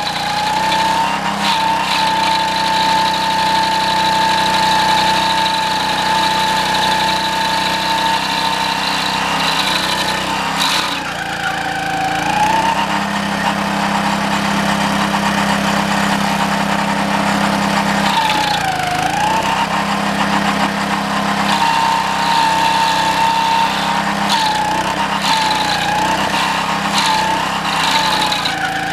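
Homemade stump grinder running, driven by its 6.5 hp Honda single-cylinder engine, its 20-inch toothed cutting wheel grinding a green pine stump. The engine pitch sags under load and recovers about a third of the way in and again past the middle, with smaller dips near the end. A few sharp ticks stand out above the grinding.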